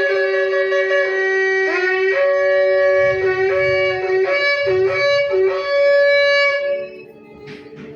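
A shofar is blown: a long held note, then a slide up to a higher note and a run of short broken blasts, ending in a held note that stops about a second before the end.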